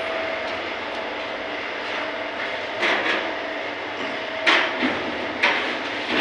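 Sheet-metal lid of a ribbon mixer being handled and opened, giving several sharp metallic clunks, the loudest two near the end, over a steady mechanical noise.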